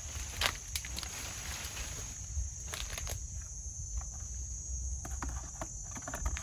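Insects trilling steadily in a high, even tone, with scattered sharp clicks and rustles of leaves and stems as plant stalks are handled and cut.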